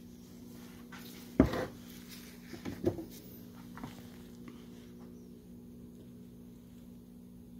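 Handling knocks: a sharp knock about a second and a half in, then a few lighter knocks near three seconds, as the cast-iron cylinder heads on the wooden workbench are shifted. A steady low hum runs underneath.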